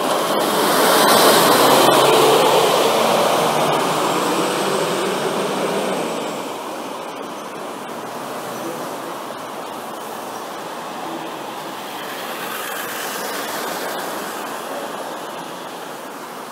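City bus passing close by and pulling away, its engine and tyre noise loudest in the first few seconds, then easing into steady street traffic noise.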